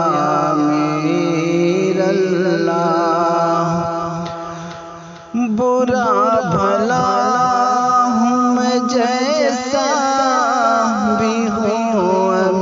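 Qawwali music: a long held note fades away over the first five seconds, then the music comes back in suddenly with a wavering, ornamented melody over a steady drum beat.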